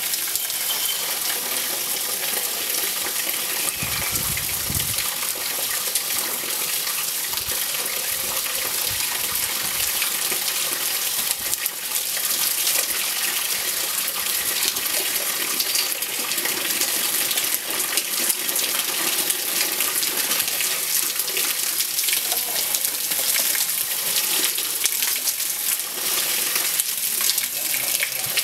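Water spraying from a garden hose onto the fan and coil fins of an air conditioner's outdoor condenser unit during cleaning: a steady hiss and splatter.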